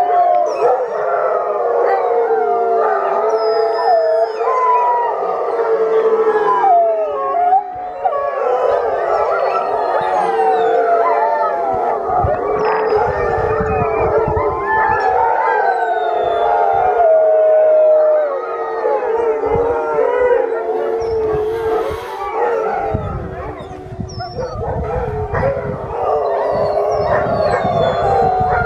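A yard of Alaskan and Siberian huskies howling in chorus: many overlapping, wavering howls at once, rising and falling in pitch without a break.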